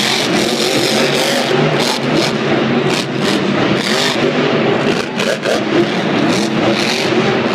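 Grave Digger monster truck's supercharged V8 engine revving hard, its pitch climbing and dropping again and again as the truck lands a jump and drives on across the dirt. The sound echoes in a big stadium.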